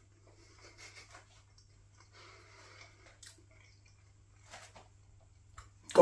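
Faint chewing and mouth sounds of a man eating a mouthful of hot steak pie, with a few soft clicks.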